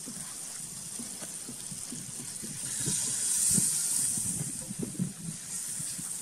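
Wood fire under a small aluminium pot, with a hiss that swells about three seconds in and fades again as pale liquid sizzles in the hot pot. Low, irregular crackling runs underneath.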